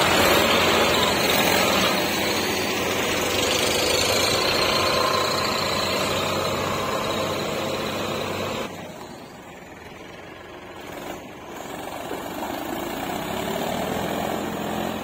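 Tractor's diesel engine running hard under load while the tractor tries to pull free of mud. About nine seconds in the sound drops suddenly to a much lower level, then climbs again near the end.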